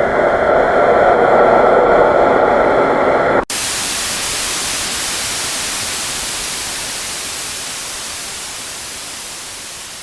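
Horror sound effect: a dense, loud noise with faint held tones that cuts off abruptly about three and a half seconds in. It switches straight to a harsh static hiss, like a detuned TV, which slowly fades.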